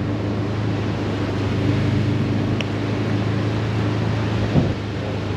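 Side-by-side UTV engine running steadily at a low hum while driving on a sandy dirt road, over a steady rushing noise of wind and tyres. A brief knock sounds about four and a half seconds in.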